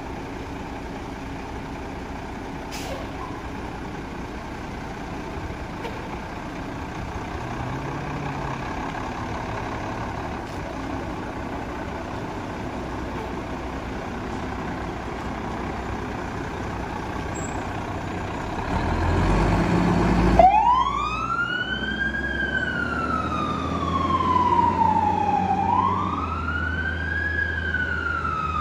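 Fire engine's diesel engine running steadily as the truck pulls out, swelling louder about two-thirds through as it pulls away. Then its siren starts, wailing up and down twice, a quick rise and a slower fall each time.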